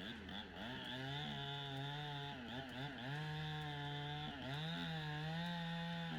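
Chainsaw running at high revs while cutting, its engine pitch sagging briefly a few times as it loads up in the wood.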